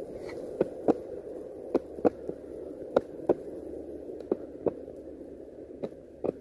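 Longboard wheels rolling on a concrete sidewalk: a steady rumble broken by paired clacks, front then rear wheels, as the board crosses the sidewalk slab joints about once a second.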